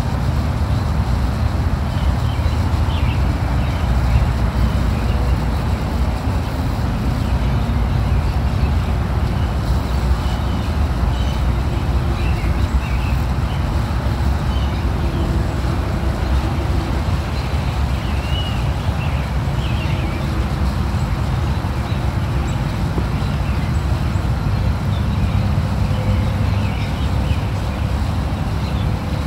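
Steady low rumble of road traffic, with a few short high chirps scattered through it.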